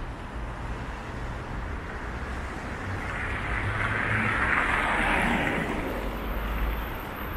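City street traffic: cars driving over a wet, slushy road, their tyres hissing over a low engine rumble. The hiss swells to its loudest about halfway through as a car passes close, then fades.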